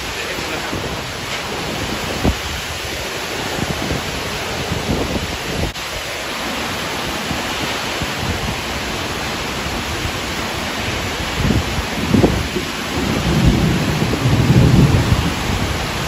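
Thunderstorm with heavy rain and strong wind, a dense steady rush of rain. A deeper low rumble swells in about three-quarters of the way through.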